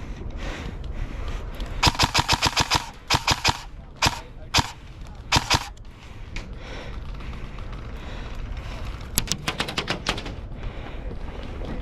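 Airsoft rifle firing short full-auto bursts of rapid, evenly spaced shots, with gaps of a second or more between bursts.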